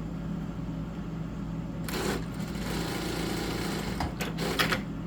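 Kansun KS-A8F industrial straight-stitch sewing machine, its motor built into the head, running and stitching for about three seconds from about two seconds in, over a steady low hum. A few sharp clicks come near the end.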